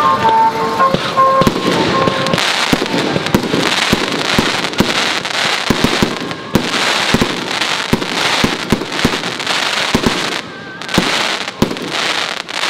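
Aerial fireworks bursting: a rapid, irregular series of sharp bangs over continuous crackling from gold glittering star shells.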